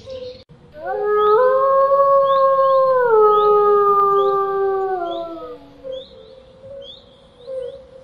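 Wolf howling: one long howl, about five seconds, that rises at the start, holds, steps down twice and falls away at the end.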